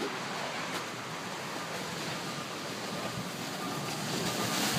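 Storm water rushing steadily through a catch basin and its full outfall pipe, a roof's rain leader system draining after its frozen underground line was thawed; the rush grows a little louder near the end.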